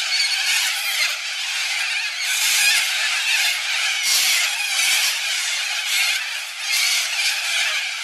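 A flock of corellas screeching as they fly overhead, many overlapping calls forming a dense, unbroken chorus that swells and eases.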